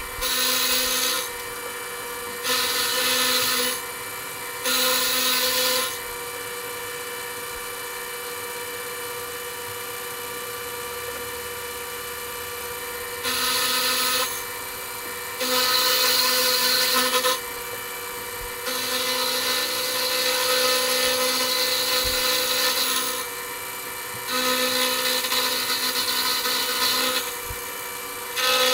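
A machine tool running steadily with a constant hum, while its cutter bites into metal in about eight louder cutting passes, each lasting one to four seconds, as a slot is cut in the part.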